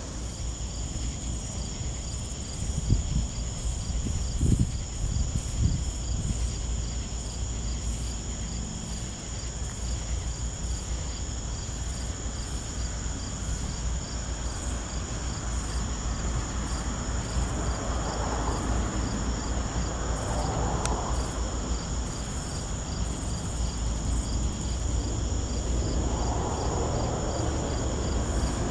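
Steady chorus of insects, several unbroken high trilling tones with one of them pulsing, over a low rumble. A few dull thumps come about three to six seconds in.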